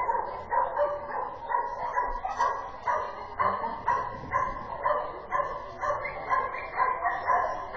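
A dog barking over and over in a steady rhythm, about two barks a second without a break.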